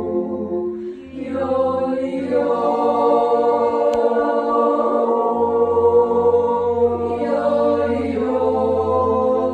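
A beginners' yodel class singing a wordless yodel together in harmony, holding long chords, with a short break about a second in as a new phrase starts.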